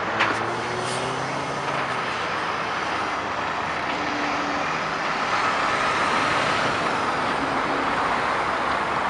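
Kenworth T800 dump truck's diesel engine running as the truck rolls past at low speed and pulls away, with tyre and traffic noise, growing a little louder in the second half as it passes close. A short sharp click just after the start.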